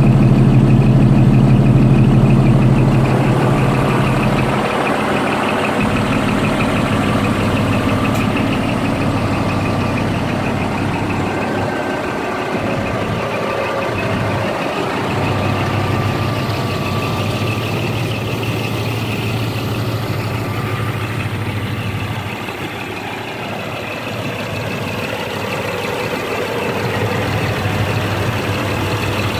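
Scania R420 tractor unit's diesel engine idling steadily, louder for the first three or four seconds.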